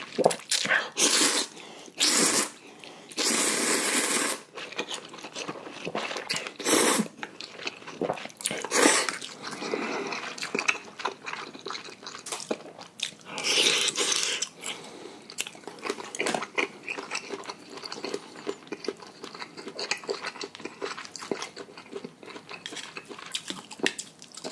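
A person eating noodles close to the microphone. There are several loud slurps of about a second each in the first fifteen seconds, with wet chewing and small clicks between and after them.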